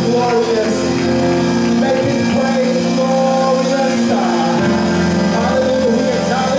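A man singing a worship song into a microphone, with held chords on an electric keyboard under his voice.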